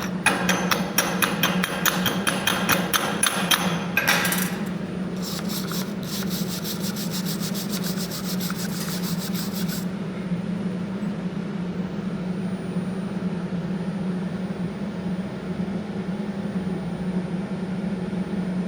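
Dense, scratchy crackle of stick-welding work for about the first ten seconds, dipping about four seconds in and then going on higher and thinner before stopping, over a steady low hum that carries on alone.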